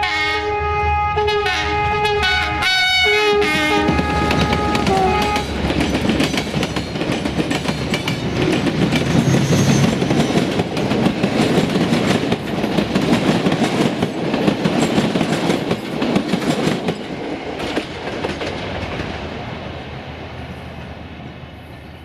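Diesel locomotive's multi-tone horn sounding a run of short, changing chords for the first few seconds. A passenger train then passes close, with rattling and clickety-clack of wheels over rail joints, which fades as it moves away.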